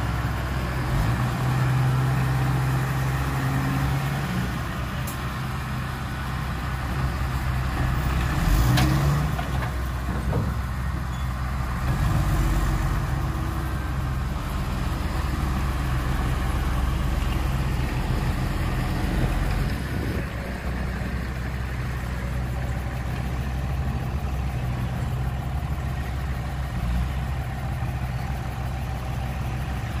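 Heavy diesel engine running steadily at low revs, its note shifting a little now and then, with a brief sharp sound about nine seconds in.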